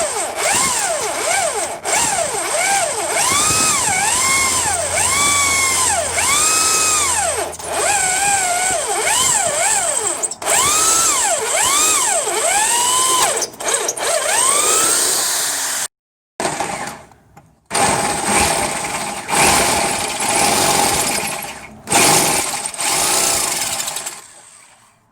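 Power drill boring out a broken high-tensile steel bolt, the bit squealing in repeated rising-and-falling whines about once a second as it cuts. The sound stops dead for a moment about two-thirds of the way in, then drilling resumes and fades away near the end.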